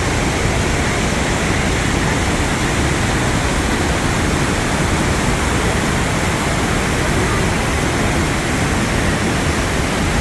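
Steady, loud rush of Iguazu Falls, heavy falling water heard close up, even and unbroken.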